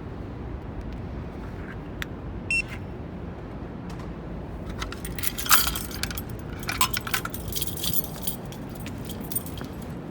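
A ring of metal keys jangling and clinking as it is handled, in a cluster of strokes from about halfway through for a few seconds, over a steady low rumble. A brief high chirp sounds about two and a half seconds in.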